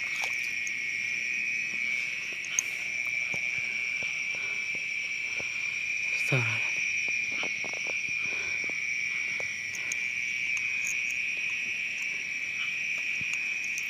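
Night chorus of crickets, a steady high continuous trill. About six seconds in, a brief sound glides down steeply in pitch.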